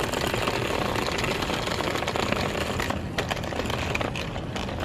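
Remote-controlled astromech droid driving, its small electric drive motors whirring and its wheels rattling steadily over the ground.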